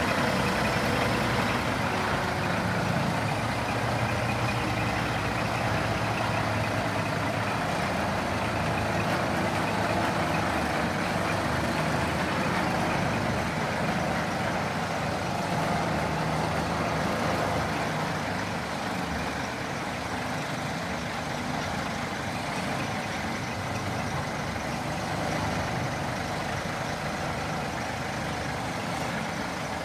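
Scania R480 8x4 tipper truck's inline-six diesel engine running steadily, a little quieter in the second half.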